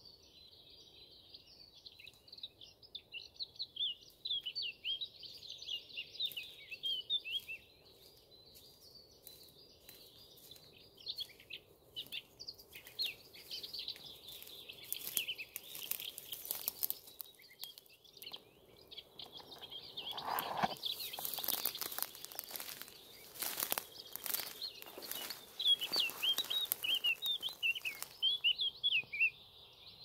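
A songbird singing in bursts of quick, high warbling phrases. In the middle stretch, a run of rustling and knocking strokes sounds between the phrases.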